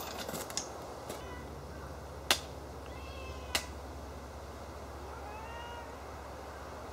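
Two sharp hand claps about a second and a half apart, the double clap of Shinto worship before a shrine, then a short rising-and-falling cat meow about five seconds in.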